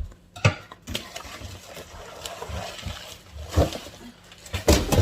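Unboxing sounds: packaging being handled, with a few sharp knocks, two of the loudest near the end, as items are unpacked.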